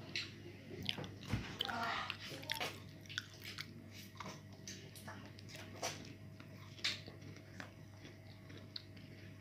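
Children biting and eating ice-cream bars: faint, scattered small clicks and mouth smacks, with a short child's vocal sound about two seconds in.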